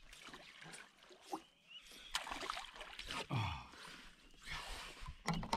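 Water splashing and sloshing at the side of an aluminium canoe as a fish is landed in a net, with a few irregular splashes and knocks against the hull.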